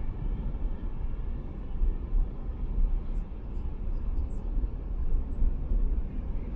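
Car driving at expressway speed: a steady low rumble of tyres on the road surface and wind noise.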